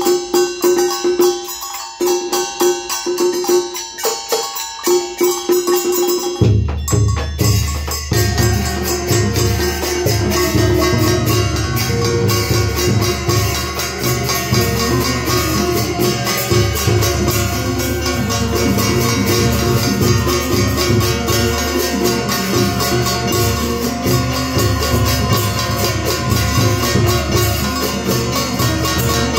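Vietnamese ritual ensemble music with percussion: a sparse passage of quick struck beats over one held note, then about six and a half seconds in the full ensemble with drums comes in and plays on densely.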